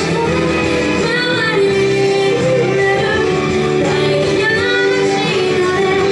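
A woman singing a Japanese pop song through a microphone, holding several long notes, over instrumental accompaniment.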